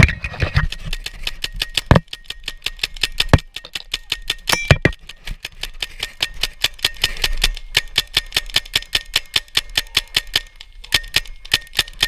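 Paintball marker firing in rapid, steady succession, about six shots a second, with a few louder knocks in the first five seconds.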